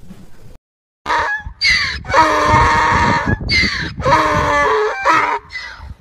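Donkey braying: a loud series of alternating wheezy and honking hee-haw calls, starting about a second in after a brief silence, with one long drawn-out call in the middle.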